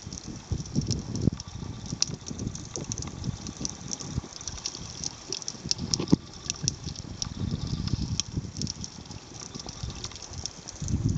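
Underwater sound picked up by a waterproof compact camera: muffled, irregular low whooshing surges of moving water, with a steady scatter of fine crackling clicks and a sharper click about six seconds in.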